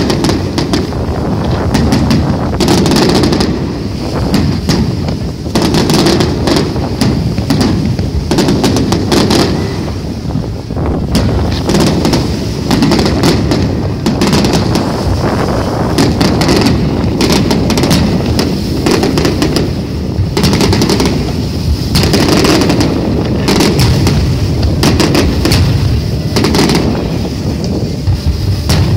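Fireworks display: a dense, continuous barrage of shell bursts and rapid crackling bangs, layered over one another, with a low rumble underneath.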